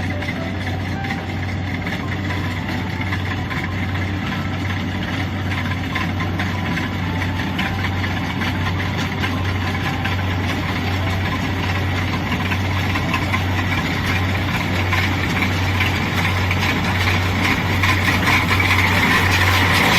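Kubota DC-70 combine harvester's diesel engine running steadily under load, with the clatter and hum of its harvesting machinery; the sound grows gradually louder toward the end.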